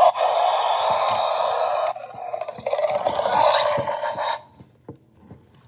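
Roar Attack Allosaurus toy playing its level-three roar sound effect through its small built-in speaker, starting with a sharp click as it is triggered and running in two long stretches with a brief dip about two seconds in. Near the end there are only light clicks of the plastic figure being handled.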